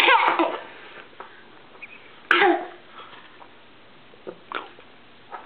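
A toddler's voice: two short, sharp outbursts, one at the start and a second about two seconds in, then a few faint clicks.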